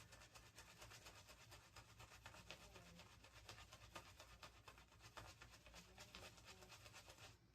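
Faint, scratchy swishing of a synthetic shaving brush working shaving-soap lather: a dense run of tiny crackles that drops away just before the end.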